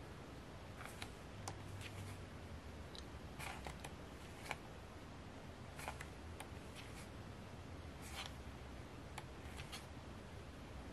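Pages of a photobook being turned by hand: a series of brief papery flicks and swishes spread a second or two apart, over a low steady hum.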